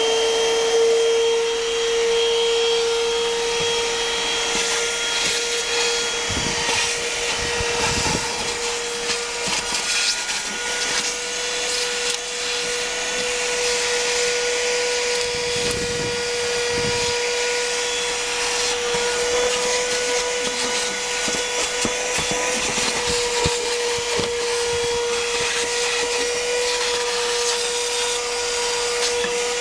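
Worx 12V handheld car vacuum running steadily: a high motor whine over the hiss of rushing air, with a few brief knocks and rattles.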